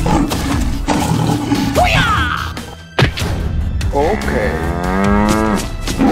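A cow mooing: one long call about four seconds in, with a shorter call around two seconds in and a sharp knock at three seconds, over background music.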